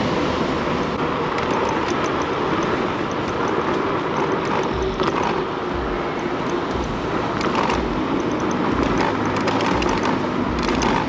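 Steady wind rush and road noise from riding a TurboWheel Phaeton electric scooter along a city street, heard through a chest-mounted camera's microphone, with a few short clicks.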